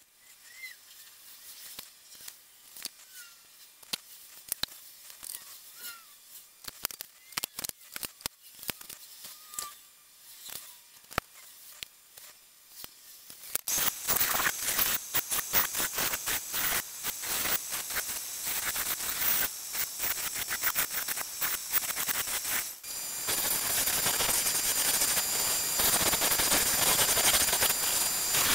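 Faint clicks and handling sounds, then about halfway a band saw starts cutting a small wooden blank with a dense rasping noise. A few seconds before the end a sanding disc on a Delta wood lathe runs with a steady high whine as wood is pressed against it.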